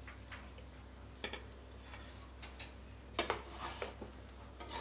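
Steel spatula scraping and clicking against a non-stick tawa as it slides under and lifts a toasted bread sandwich: a few quiet, sharp clicks spread over several seconds, over a faint steady hum.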